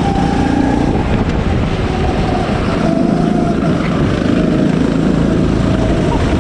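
Go-kart driven at speed on a track, heard from the onboard camera: a steady, loud motor drone with a thin whine that wavers slightly in pitch, and wind buffeting the microphone.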